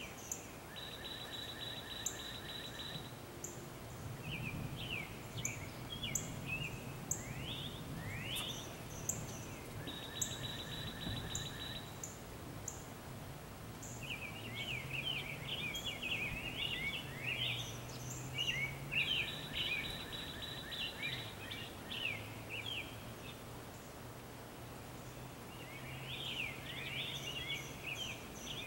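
Songbirds singing: a trill of about a second and a half repeats every nine seconds or so, among quick chirping calls, with a faint low hum underneath.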